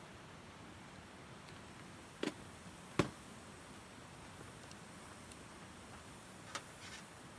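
Damp firewood burning and crackling, with a few sharp pops, the two loudest about two and three seconds in and a smaller one near the end, over a faint steady hiss.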